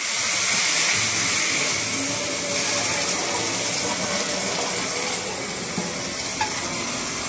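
Tap water running into a hot frying pan at a metal kitchen sink, with a steady hiss as the water turns to steam on the hot metal.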